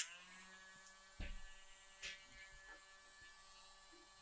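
Faint steady electrical hum made of several even tones, with a few soft ticks about a second and two seconds in.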